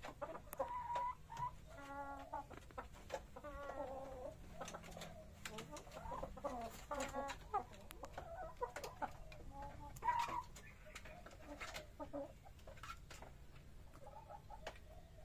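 Chickens clucking in short, repeated pitched calls throughout, with scattered sharp clicks.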